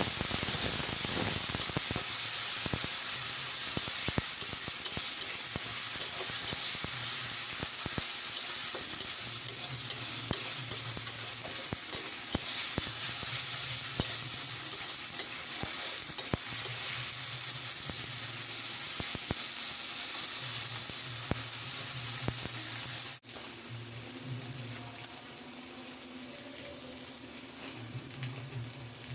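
Food sizzling in a frying pan while a spoon stirs it, with frequent clicks and scrapes of the spoon against the pan. About three quarters of the way through the sound cuts abruptly and carries on as a quieter sizzle.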